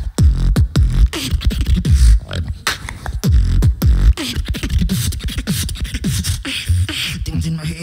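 Beatboxing into a handheld microphone: a fast rhythm of sharp snare-like clicks and hi-hat hisses, alternating with deep bass sounds that drop in pitch.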